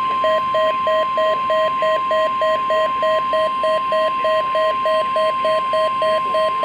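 NOAA Weather Radio 1050 Hz warning alarm tone, received over a weather radio during the required weekly test: one steady, loud tone. A lower tone pulses under it about three times a second.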